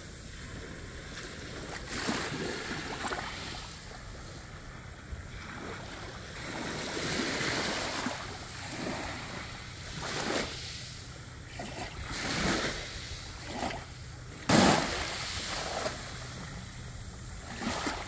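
Small waves washing in shallow sea water, with wind buffeting the microphone, swelling and fading every few seconds. There is one sudden loud rush about three quarters of the way through.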